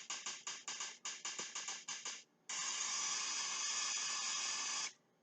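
A quick run of short hissing bursts, about six a second, then after a short pause one steady hiss lasting about two and a half seconds that cuts off suddenly.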